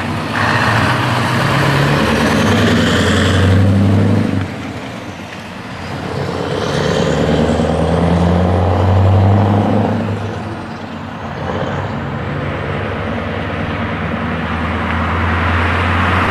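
Scania R500 V8 truck engine with an open exhaust pipe, pulling away and accelerating. There are three long pulls, each rising in pitch, with a drop between them as it shifts gear.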